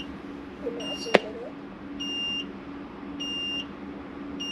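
Newly built desktop PC beeping steadily: a short high beep about every 1.2 seconds, over a steady low hum. A sharp click about a second in.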